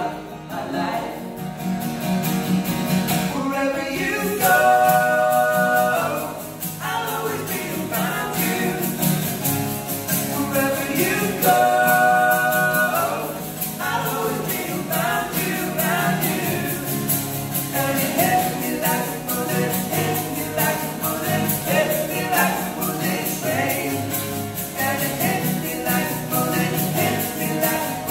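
Live acoustic pop song: three male voices singing in harmony over two strummed acoustic guitars, with long held notes about five seconds in and again about twelve seconds in.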